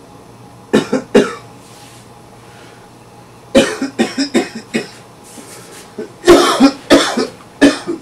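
A man coughing hard in fits: three coughs about a second in, then two longer bouts of rapid coughs, the second bout the loudest.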